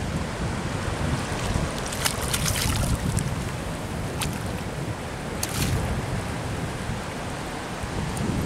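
Wind buffeting the microphone over choppy sea water, with a hooked black sea bream splashing at the surface: a cluster of splashes about two seconds in and another around five and a half seconds.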